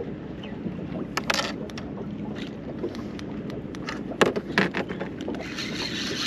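Sharp knocks and clicks from handling fishing gear aboard a small boat, over a steady low hum of water and wind. A hiss lasting about a second comes near the end.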